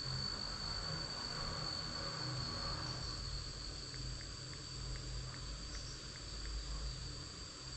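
Insects keeping up a steady high-pitched drone, over a low rumble.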